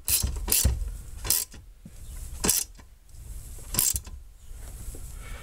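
Hand ratchet wrench tightening the bolts of a Cusco rear strut brace: about five short bursts of pawl clicking, one per back-stroke, coming further apart toward the end.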